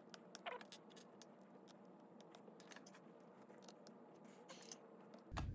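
Near silence with faint, scattered light clicks and ticks of small tools working at a stripped laptop drive screw that will not come out.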